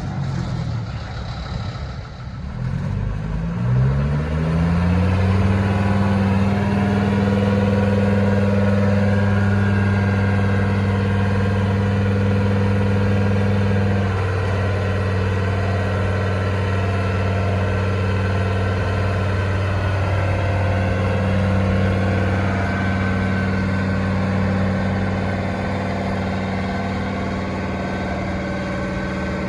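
An engine running: its pitch drops in the first two seconds, climbs again, then holds steady at a low, even pitch.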